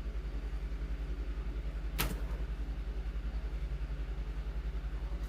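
Steady low machine hum with a fast, even flutter, and one sharp click about two seconds in.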